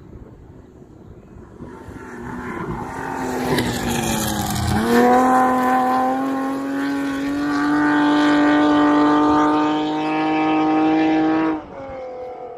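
Off-road race car engine growing louder over a few seconds, dipping in pitch and then jumping up about halfway in. It holds high revs with the pitch slowly climbing for about six seconds, then cuts off abruptly near the end.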